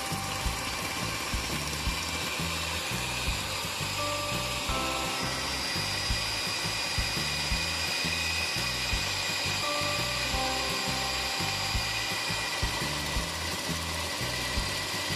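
Electric hand mixer running steadily, its twin beaters whisking eggs and sugar in a stainless steel bowl with a continuous motor whine. Background music with a steady beat plays alongside.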